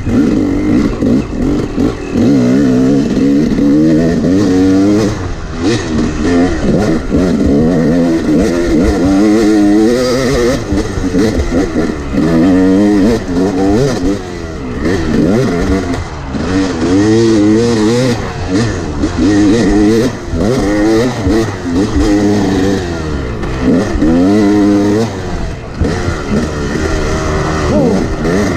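Yamaha 250 two-stroke dirt bike engine revving up and down repeatedly under hard riding, its pitch rising and falling every second or two as the throttle is opened and closed, heard close up from the bike.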